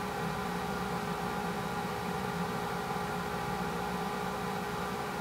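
A small machine running with a steady hum and hiss, several steady tones held without change.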